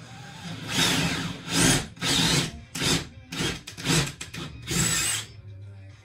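Cordless drill spinning a 35 mm hinge boring bit into a cabinet door, cutting the cup recess for a concealed hinge in a series of short trigger bursts.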